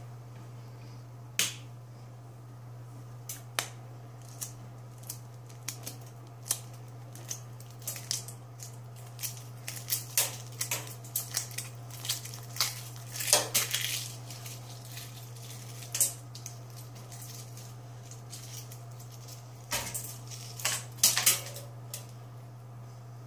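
Shell of a hard-boiled egg being peeled by hand: a scattered run of small sharp cracks and snaps as bits of shell break away, thickest about halfway through and again near the end. A steady low hum runs underneath.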